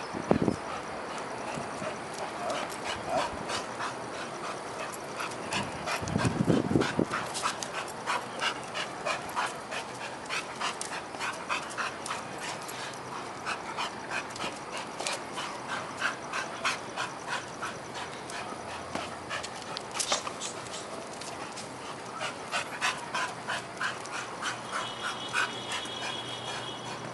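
Pit bull–type dog panting hard after play, a quick, even run of short breaths at about three a second. A couple of dull thumps come near the start and about six seconds in.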